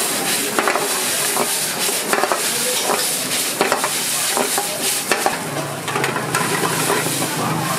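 Noodles frying in a metal wok over a gas burner, sizzling steadily while being stirred and tossed with wooden chopsticks that click and scrape against the pan.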